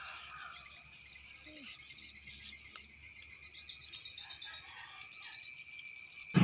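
Early-morning rural ambience: insects chirring steadily, with a few short, high bird chirps in the second half.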